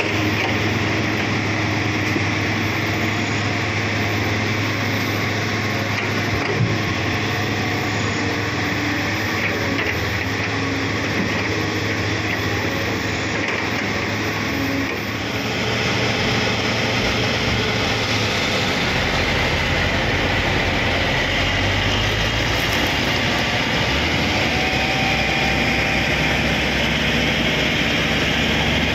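Heavy diesel machinery running steadily: crawler bulldozer and loaded logging truck engines. The sound shifts about halfway through, and a deeper low engine rumble sets in for the later part.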